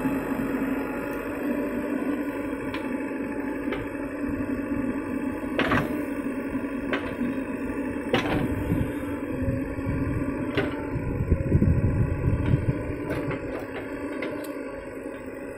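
JCB 3DX backhoe loader's diesel engine running steadily while the backhoe arm digs and swings, with several sharp metallic knocks from the bucket and arm, and a louder low rumble about three-quarters of the way through.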